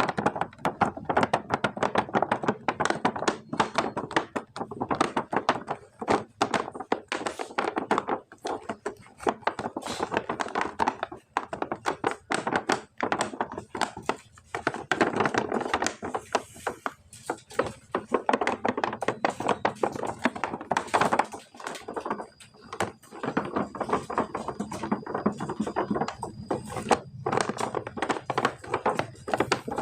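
Plastic toy packaging and action figures being handled and opened close to the microphone: a dense, irregular stream of taps and clicks.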